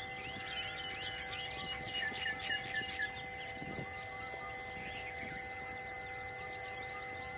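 Wild bird and insect sounds: several birds chirping and calling, with a run of about five quick chirps around two seconds in, over a high insect buzz that comes and goes in stretches of about a second.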